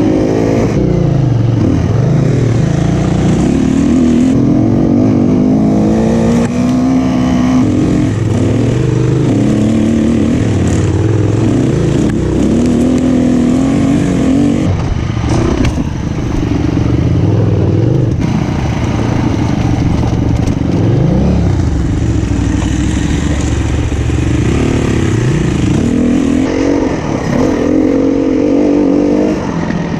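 SWM 300RS enduro motorcycle engine running under load, its pitch rising and falling over and over as the throttle is opened and closed.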